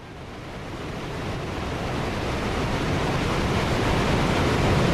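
Large waterfall with a steady rushing roar of falling water, fading in and growing louder over the first few seconds.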